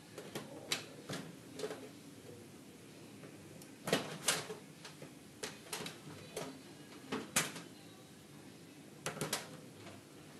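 Irregular sharp clicks and light taps, about a dozen, some in quick pairs, as a small screwdriver works the push-in wire terminals of an electronic fluorescent ballast in a sheet-metal troffer, releasing the wires to disconnect the ballast.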